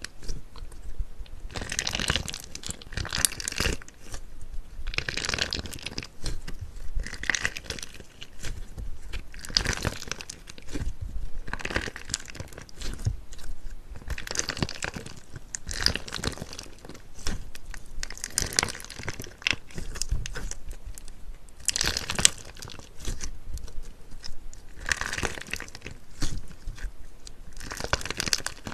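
Slime being pressed and squeezed by hand close to the microphone, giving crackly, crunchy bursts that repeat about every two seconds.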